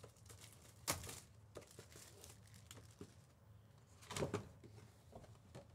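A few faint, scattered clicks and light rustles of hands handling trading-card boxes and packaging, with the sharpest clicks about a second in and about four seconds in.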